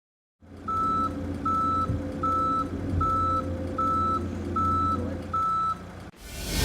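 Reversing alarm on a truck sounding seven evenly spaced beeps, one about every 0.8 seconds, over the low, steady run of its engine. The beeping stops near the end.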